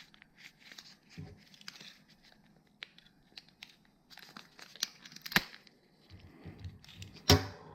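Plastic packaging crinkling and tearing as parts are unwrapped, with scattered clicks, a sharp snap about two-thirds of the way through and a louder crackling rip near the end.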